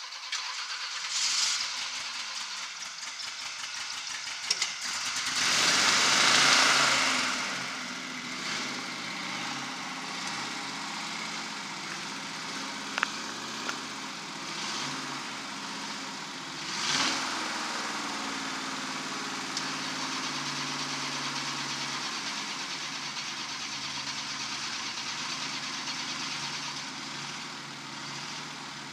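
Hot rod roadster's engine revving: a short rev about a second in, a long loud rev around six seconds in and another near seventeen seconds, then running at a steady idle.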